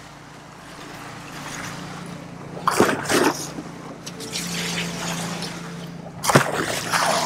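Water sloshing and splashing from a plastic bucket worked over the side of a moving boat, twice: about three seconds in and again near the end. The boat's engine hums steadily under the rush of water along the hull.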